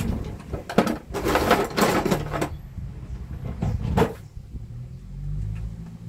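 Hand tools rattling and clattering as someone rummages through them looking for a screwdriver: a sharp click, a longer scraping rattle, then a couple of knocks.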